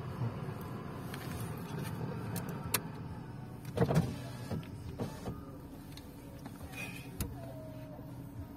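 A car's electric window motor runs for about four seconds and stops with a clunk, over the low hum of the stationary car. A few light clicks follow.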